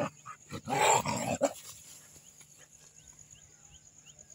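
Puppies growling in play, with one short rough growl about a second in, then quieter.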